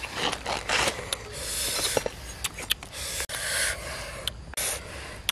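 A knife cutting through the crisp skin of a roasted pig's head, making bursts of crunchy scraping with sharp cracks.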